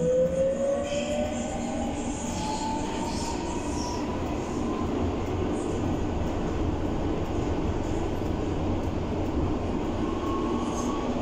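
Berlin U-Bahn class H train pulling out of a station into the tunnel, heard from inside the car: the traction motor whine rises in pitch over the first few seconds as it accelerates, then gives way to a steady running rumble with wheel and rail noise.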